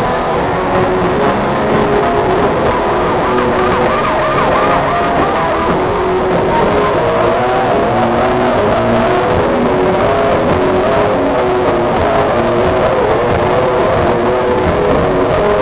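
Heavy metal band playing live at full volume: distorted electric guitars over drums, with a stepping riff and guitar notes bent in a fast, wide vibrato.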